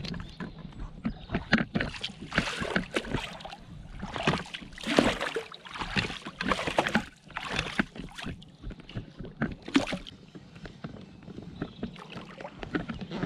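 Oars of a float tube splashing and sloshing in lake water in irregular strokes, busiest through the middle and easing off near the end.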